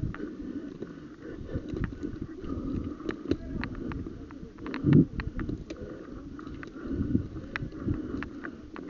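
Outdoor movement and handling noise: a low rustling rumble with scattered sharp clicks and knocks, and a heavier thump about five seconds in.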